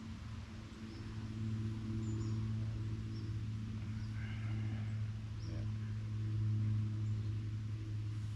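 A steady low drone, like a distant motor, that grows a little louder after about a second. Faint short bird chirps sound over it.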